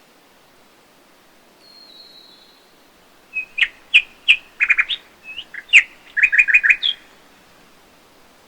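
A songbird singing a quick series of sharp chirps and short trills for about four seconds, after a faint, thin high whistle about two seconds in. Faint steady hiss underneath.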